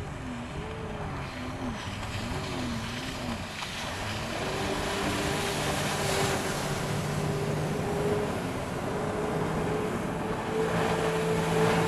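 Jet ski engine changing speed, its pitch wavering up and down for the first few seconds, then running steadily at higher revs and a little louder, over a rushing hiss of water and wind.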